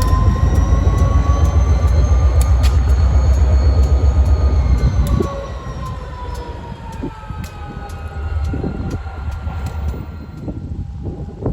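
A train rolling past: heavy low rumble with regular clicks of wheels over rail joints, and a thin wheel squeal that slowly rises and falls in pitch. The rumble drops away sharply about five seconds in.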